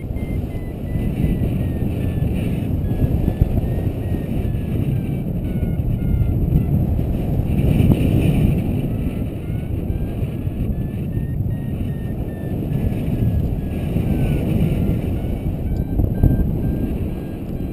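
Wind buffeting a camera microphone in paraglider flight, a loud rumbling rush that swells and eases in gusts. Over it, a paragliding variometer's faint beeping tone climbs and falls in pitch as the glider rises and sinks.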